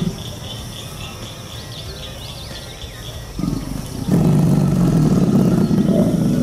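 American alligator giving a deep, loud rumbling call that starts about four seconds in and lasts about two seconds, after a short low burst just before it.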